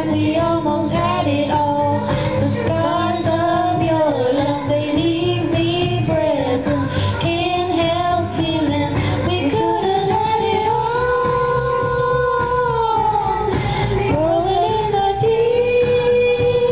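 Two women singing into handheld microphones over a backing track, holding long notes about eleven seconds in and again near the end.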